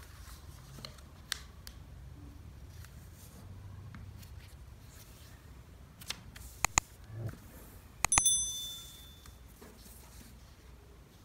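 Subscribe-button sound effect: a few sharp computer-mouse clicks about six to seven seconds in, then two more clicks and a short bright notification-bell ding that rings out and fades about eight seconds in. Faint rustling of origami paper being handled and creased underneath.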